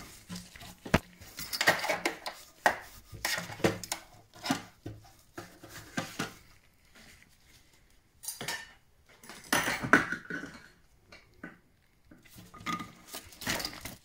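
Irregular clinks and taps of tools and small metal parts against the boiler's sheet-metal casing as the burner's ignition electrode is unbolted and handled, with a quieter stretch in the middle.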